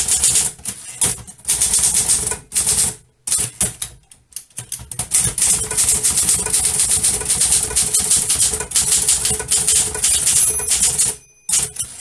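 Manual typewriter typing quickly: a dense, rapid run of type-bar strikes with a few short pauses, and the margin bell ringing once briefly near the end.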